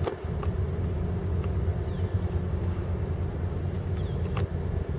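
Boat motor running steadily with a low rumble, with a few light clicks.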